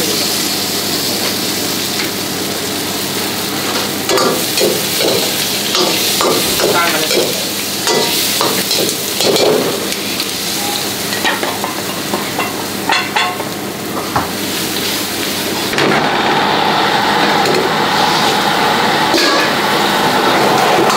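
Stir-frying in a wok over a gas burner: steady sizzling, with a metal ladle scraping and clanking against the wok in quick strokes through the middle. The sizzle grows louder and fuller about three quarters of the way in.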